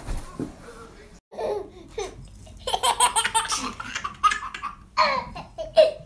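Baby laughing in repeated short bursts.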